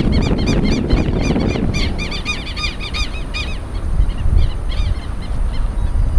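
Birds calling in a fast series of short, high, arched notes, about four a second, which thin out and fade after about three and a half seconds, over a steady low rumble.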